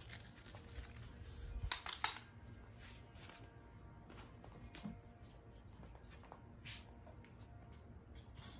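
Scattered light clicks and knocks of hand tools being handled and set down, with one sharper click about two seconds in.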